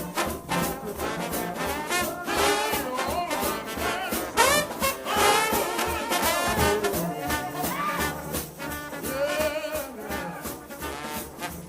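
A trombone-led shout band plays, with bending, wavering brass notes over a steady beat.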